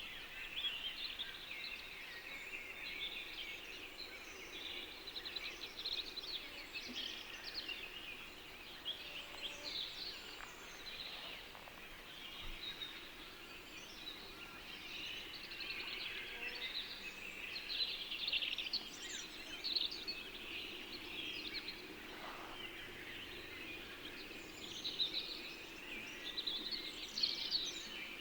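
Many small birds chirping and singing at once in a continuous, overlapping chorus of short high calls and trills, over a faint steady low background.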